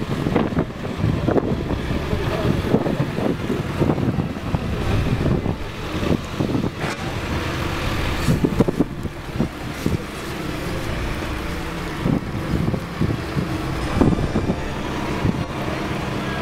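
Wind buffeting the microphone in irregular gusts, a low, uneven rumble over outdoor ambience.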